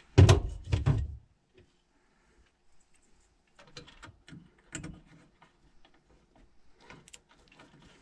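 A few loud thumps in the first second from hands working inside an air handler's sheet-metal cabinet, then faint clicks and rustling as the low-voltage control wires are handled.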